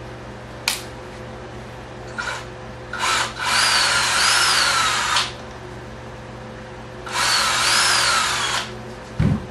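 Small power drill boring a hole through the center of a model airplane wheel for a 4-40 axle bolt: a brief blip, then two runs of about two seconds and a second and a half, the motor's pitch wavering as it cuts. A sharp click comes before, and a low thump near the end.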